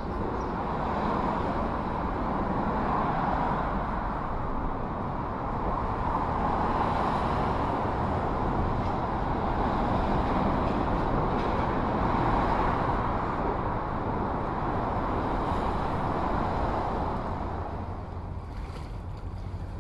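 Busy highway traffic: a steady wash of tyre and engine noise from passing cars, swelling and easing every few seconds as vehicles go by, thinning out near the end.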